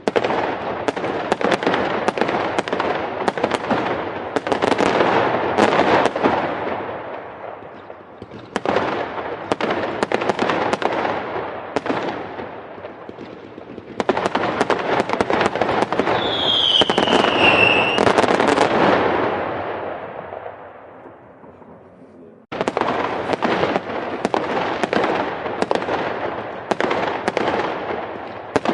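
Fireworks crackling: dense, rapid pops in four bursts that start suddenly and fade away, with a short falling whistle in the middle of the third burst.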